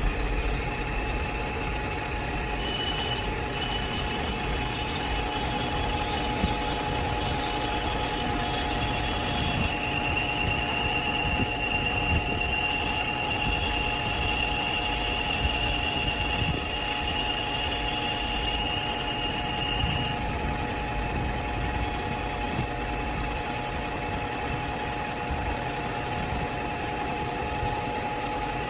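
Metal lathe running and turning steel, a steady machine hum. A high-pitched whine from the cut grows louder about ten seconds in and cuts off suddenly about twenty seconds in.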